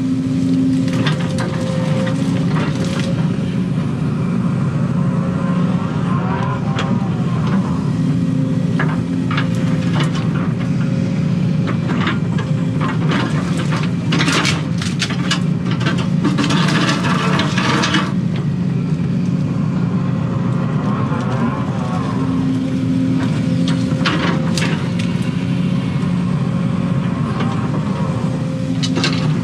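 Excavator's diesel engine running steadily under hydraulic load, heard from inside the cab. Brush and roots crackle and snap as the bucket digs at stumps, most of all around the middle and again near the end.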